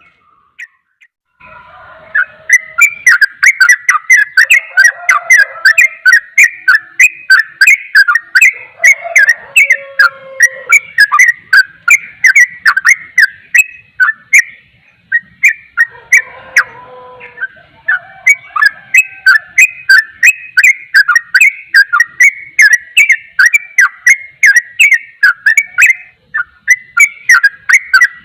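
Yellow-vented bulbul (trucukan) singing in a fast, unbroken run of chirping, whistled notes, the 'ropel' song style. It starts about a second and a half in and pauses briefly about halfway and again near the end. The recording is very loud, and the strongest notes crackle as if distorted.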